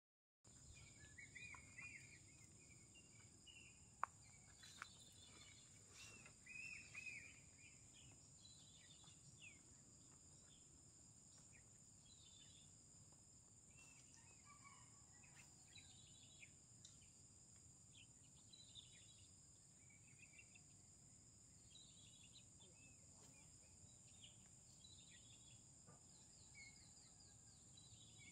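Quiet outdoor ambience: scattered bird chirps and calls over a steady high-pitched hiss, with a single sharp click about four seconds in.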